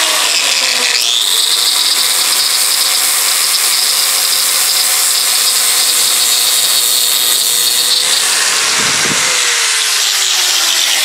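Angle grinder with a flap disc running and grinding rust off a steel axe head: a loud, steady grinding hiss over the motor's whine. Near the end the whine sinks in pitch.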